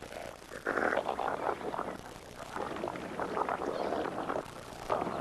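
Water splashing and churning in irregular bursts as feeding water birds work a shallow pool. The loudest splash comes about a second in.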